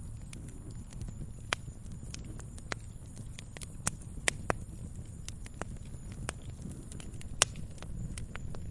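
Wood fire crackling in a fireplace: irregular sharp pops and snaps over a low steady rumble of the flames, with a few louder pops near the middle and near the end.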